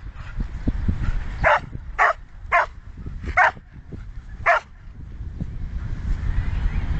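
A dog barks five times, the barks half a second to a second apart, over a steady low rumble.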